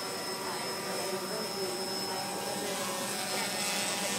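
Small quadcopter drone's rotors buzzing steadily overhead as it hovers, a whine made of many steady tones over a background of voices.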